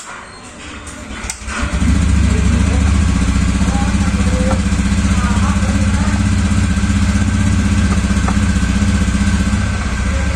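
A small engine starts about two seconds in and then runs steadily at idle with a low, pulsing hum.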